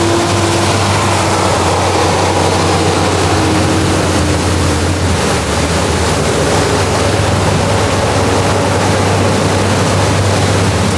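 Fast-flowing floodwater rushing steadily across a road, over a constant low hum from a running vehicle engine.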